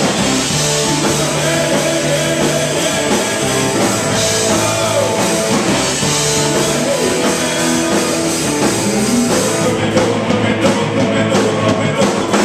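Live punk-rock band playing: electric guitars, bass and drum kit with sung vocals. About ten seconds in the dense sound thins out to separate drum hits.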